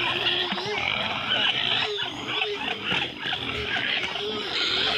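Farmyard poultry, chickens and ducks, calling all at once as they crowd round to be fed: a busy, unbroken chatter of many short overlapping calls.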